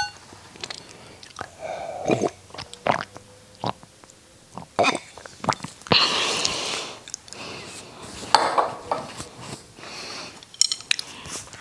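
Close-miked sips and swallows of water from a stemmed glass, with small mouth clicks, and a light clink near the end as the glass is set down on the glass tabletop.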